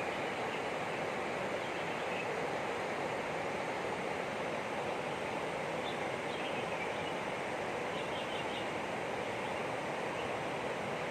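Steady rush of flowing water, a stream or river running, with a few faint high chirps about six and eight seconds in.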